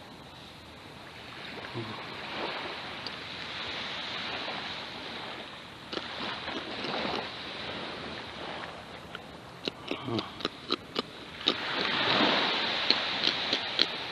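Waves washing on a beach with a rushing hiss that swells and fades several times. A quick run of sharp clicks comes about two-thirds in and again near the end.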